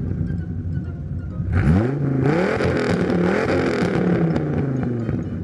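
Dodge Viper's 8-litre V10 running at idle, then revved repeatedly from about a second and a half in, the pitch climbing and dropping with each blip of the throttle.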